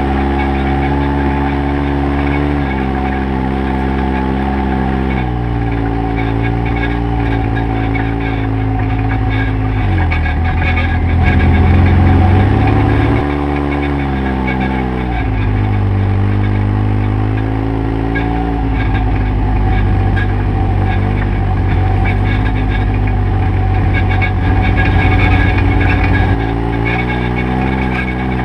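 Side-by-side UTV engine running at low trail speed, its pitch stepping up and down with the throttle. It is loudest about eleven to thirteen seconds in and again later on.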